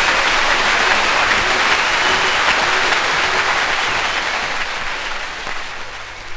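Audience applauding after a song, a dense even clapping that thins out and grows quieter near the end.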